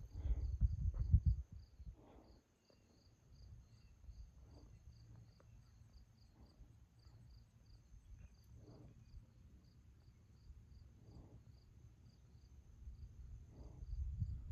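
Insects chirping: a high chirp repeating evenly about three times a second over a steady high trill. A low rumble of wind or handling on the microphone is loud for the first two seconds, and faint soft knocks come every couple of seconds.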